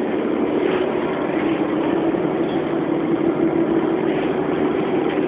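Steady engine drone heard from inside a travelling vehicle.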